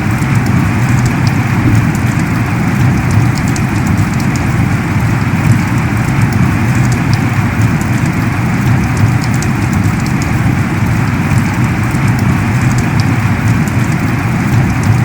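Heavy rain pouring steadily, a dense even rush with scattered individual drops ticking through it.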